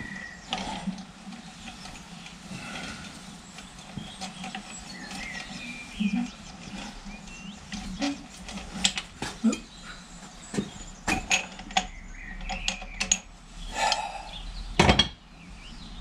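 Irregular metallic clinks and knocks of steel tools and parts being handled and fitted, with a louder knock just before the end.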